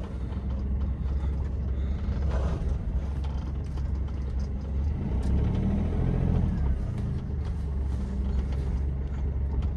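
Inside a small Chevrolet Beat hatchback on the move: a steady low engine and road rumble heard from the cabin. The engine note briefly rises and falls about halfway through.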